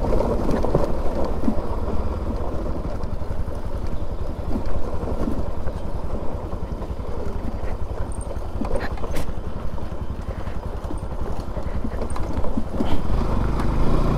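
Bajaj Pulsar NS200's single-cylinder engine running at low speed on a rough gravel track, with stones crunching and clicking under the tyres. The engine grows louder near the end.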